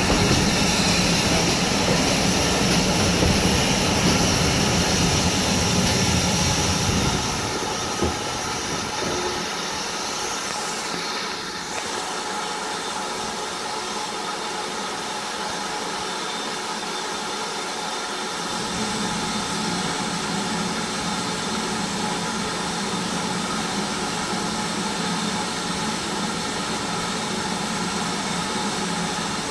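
Running noise of a train hauled by a GWR 56xx class steam tank engine, heard from a carriage window: steady rumble and rush of wheels on rail. It is loudest for the first several seconds, drops after a single click, and its low rumble returns a little past halfway.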